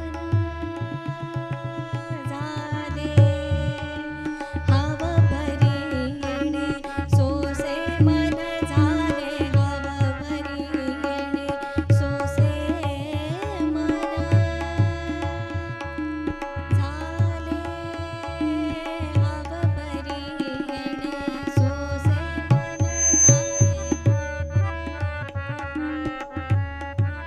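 Tabla and harmonium playing a devotional abhang. The harmonium holds steady chords, the tabla keeps a running rhythm of strokes, and a woman's voice sings over them in places.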